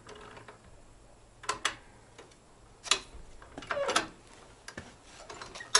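A few sharp knocks and clicks of metal parts being handled, four or five strikes at irregular intervals, with a short squeak-like sound among them about four seconds in.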